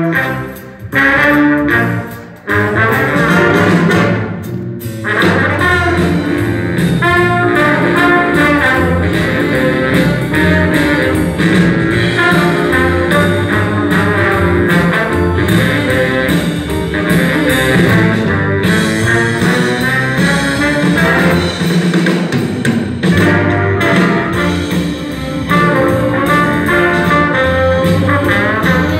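Big band playing jazz live, with the standing trombone section carrying the brass sound. The band stops short a few times in the first five seconds, then plays on without a break.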